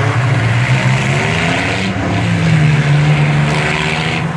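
Several demolition derby cars' engines revving hard together, their pitch rising and falling, as the cars push against each other and spin their wheels.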